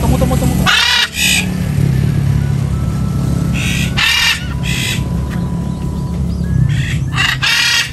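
Macaws giving harsh squawking calls: a couple about a second in, two together around four seconds, and a quick run of several near the end. A steady low rumble runs underneath.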